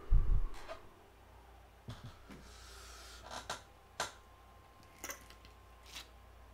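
A loud dull thump against the microphone or desk just after the start, followed by a scatter of light clicks and faint rustling, like small objects being handled close to the microphone.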